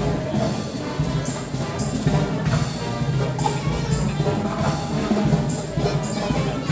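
Band music playing, with brass instruments and drums.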